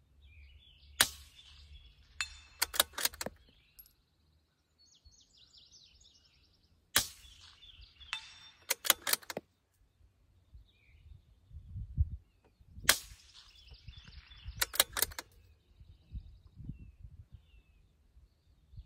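Three shots from a .22 rifle with a Q Erector suppressor, about six seconds apart: each a sharp, fairly quiet crack, followed a second or two later by a quick run of three or four clicks.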